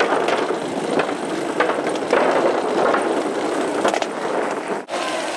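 Skateboard wheels rolling steadily over hard ground, with scattered sharp clacks, and a brief drop-out near the end.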